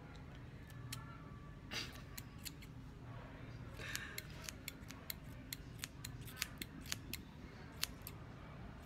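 Scissors snipping through hair close to the ear: a few scattered sharp snips, then a quicker run of about three snips a second from about four seconds in.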